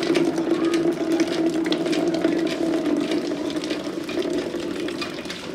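Water from a hand pump pouring in a steady stream into a plastic jerrycan as it fills, a continuous splashing with a steady humming note.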